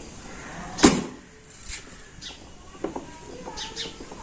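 A Honda scooter's hinged seat is pushed shut with one loud thump about a second in, followed by a few faint clicks.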